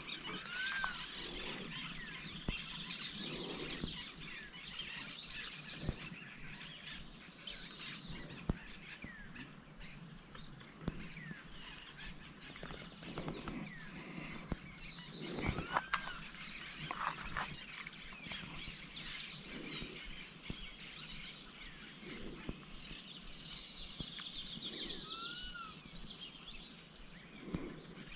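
Several birds chirping and calling, short rising and falling chirps with a quick trill near the end, over a soft outdoor hiss. A few short knocks break in now and then.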